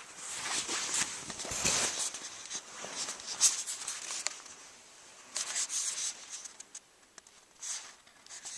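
Irregular rustling and scraping noises in short bursts, with a quieter stretch from about two-thirds of the way in; no yowling is heard.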